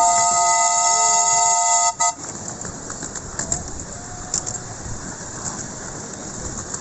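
Miniature steam locomotive's whistle blown at a whistle board: a loud whistle sounding several notes at once, cutting off sharply about two seconds in. After it comes the quieter, steady noise of the train running, with small clicks.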